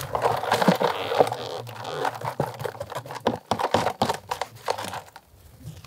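Worm compost sliding and pouring out of a plastic basin into a wheelbarrow with a crackling rustle, followed by a quick run of knocks and taps as the tub is worked to free the castings stuck to its bottom.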